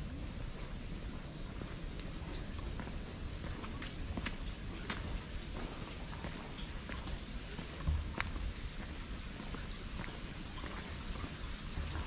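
Forest insects keep up a steady high-pitched buzz, overlaid with a short chirp that repeats a little more than once a second. A few faint clicks and a low rumble sit underneath.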